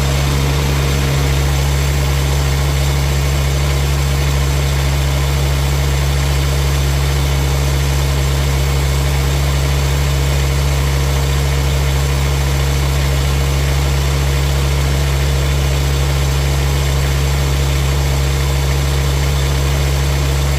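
Mini excavator engine idling steadily, with its newly fitted 100-amp one-wire alternator belt-driven on the front, during a test run of the new charging setup.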